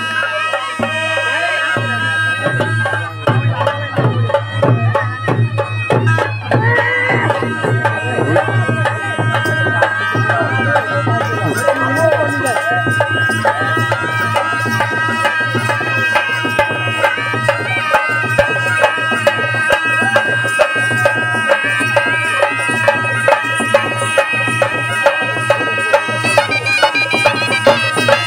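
Traditional folk music for a masked-dance procession: a melody of long held notes over drumming and a steady low drone, with the drumbeat growing more prominent toward the end.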